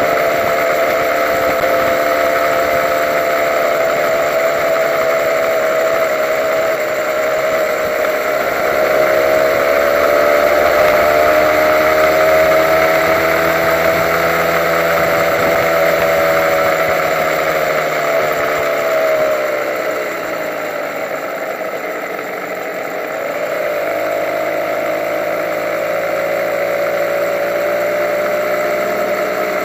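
Honda NSR150's single-cylinder two-stroke engine running while the bike rides slowly in traffic; the engine note climbs gently, drops away about eighteen to twenty seconds in, then holds a steady lower note.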